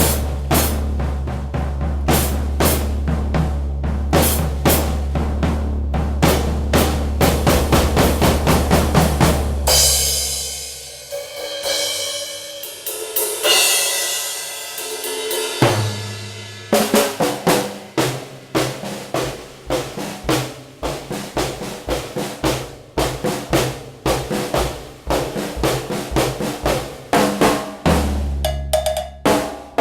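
Drum kit played: rapid snare and bass drum strokes, giving way about ten seconds in to several seconds of cymbal wash, after which the drumming resumes.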